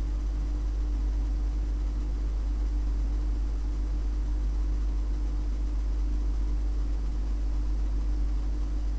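A steady low rumbling hum with a faint hiss, unchanging in level.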